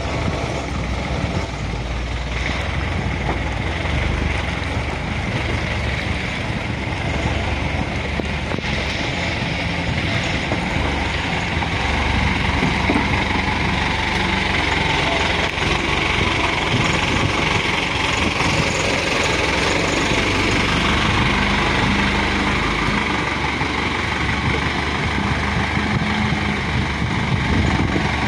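Isuzu dump truck's diesel engine running steadily, a little louder and harsher through the middle of the stretch.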